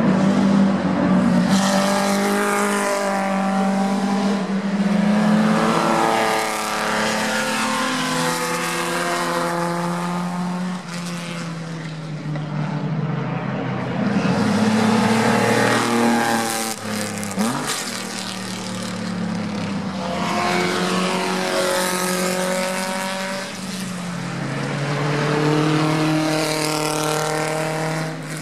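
Racing car engines going past one after another, their pitch dropping and climbing again and again as the cars brake, downshift and accelerate through the corner.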